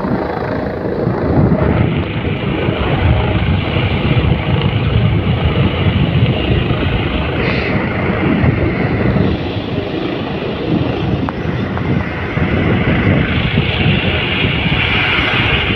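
Helicopter rotor and turbine running loudly as it hovers and sets down on a ship's deck to land, mixed with wind buffeting the microphone.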